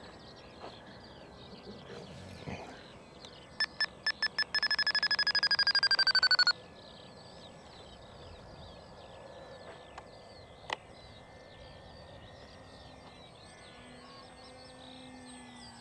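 RC radio transmitter beeping: five separate beeps, then a fast run of beeps that falls slowly in pitch and cuts off suddenly. A single sharp click comes a few seconds later.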